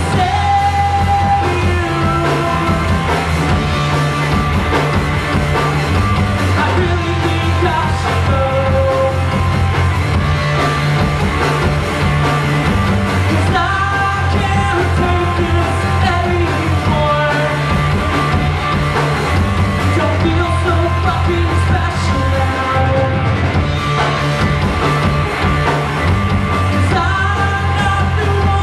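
Live rock band playing: electric guitars and a drum kit over a steady bass line, with a man singing lead into the microphone.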